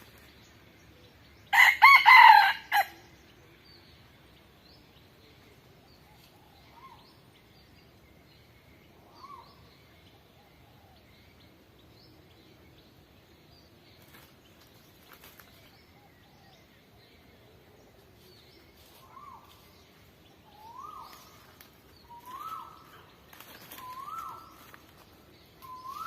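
A rooster crows once, loud, about a second and a half in. Later a string of short rise-and-fall calls repeats about every second and a half, growing louder toward the end.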